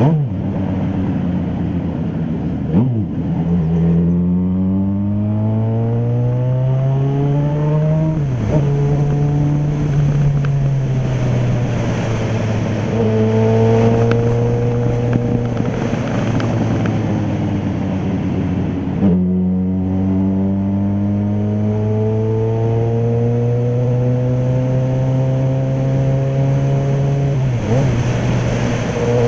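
Yamaha XJ6's 600 cc inline-four engine under way, its pitch climbing as it pulls and dropping suddenly at each gear change, about four times, with a steadier cruise in the middle.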